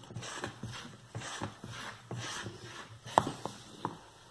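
Thick homemade soap being stirred in a pot: wet swishes about once a second, then a few sharp knocks of the stirring utensil against the pot a little after three seconds in.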